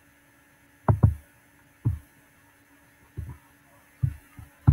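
A computer mouse being clicked, picked up as about six soft, low thumps at uneven intervals, two of them close together about a second in.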